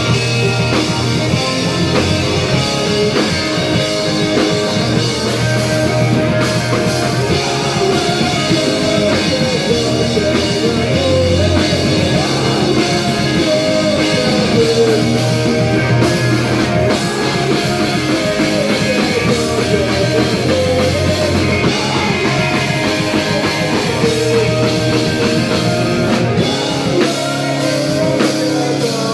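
Punk rock band playing live: electric guitars, bass guitar and drum kit at a steady, loud level.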